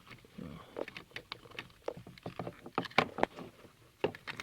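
Screwdriver working a screw out of a car's plastic dashboard switch panel: irregular clicks, taps and scrapes of the metal tool against the screw and plastic trim, the loudest about three seconds in.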